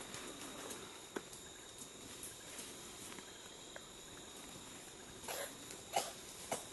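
Mandrills moving through dry leaf litter on the forest floor: scattered crackles and rustles, with two louder short sounds about five and six seconds in. A faint steady high buzz runs underneath.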